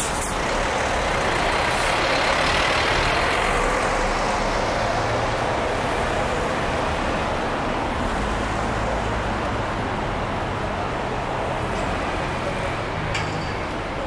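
City street traffic running steadily, with a large bus passing close by and swelling louder in the first few seconds before fading into the general traffic noise.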